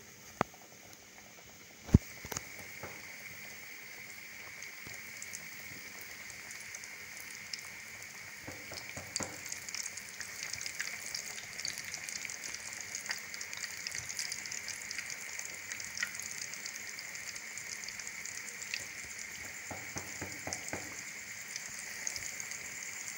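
Flour-coated chicken drumsticks deep-frying in hot oil in a kadhai: a steady sizzle with crackling pops, growing louder over the first several seconds after the pieces go in. A sharp click about two seconds in.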